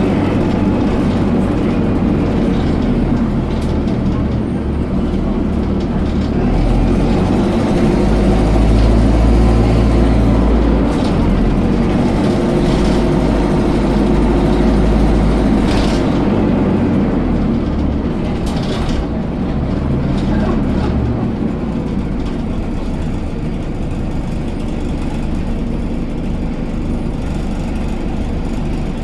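Dennis Dart SLF single-deck bus running, its engine rumble growing heavier for several seconds from about a quarter of the way in, then easing off, with a couple of short knocks or rattles just past the middle.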